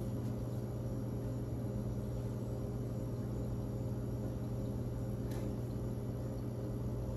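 Steady low machine hum of commercial kitchen equipment, with a faint click about five seconds in.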